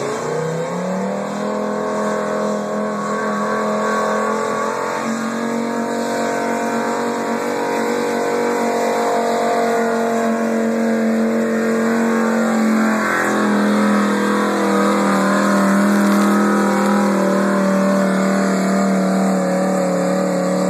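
Pulling truck's engine at full throttle, dragging a weight-transfer sled: the revs climb over the first second or two, then hold high and steady, and the pitch drops a step about two-thirds of the way through.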